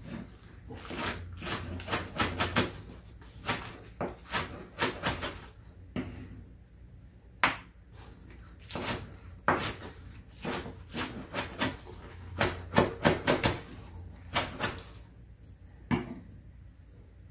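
Knife chopping green onions on a wooden cutting board: quick sharp taps in irregular runs, with short pauses between runs.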